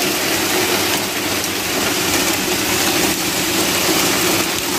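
Pea-sized hail pelting down in a steady, dense hiss of countless small impacts, with no let-up.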